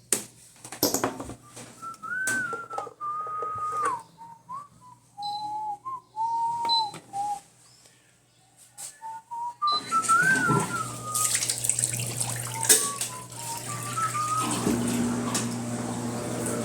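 A person whistling a tune, with a few clicks near the start. From about ten seconds in, a steady hum and hiss run under the whistling.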